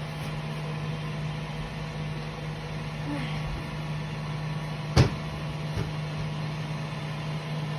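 Steady electrical hum of a kitchen appliance, with one sharp knock about five seconds in, like something hard set down on a counter.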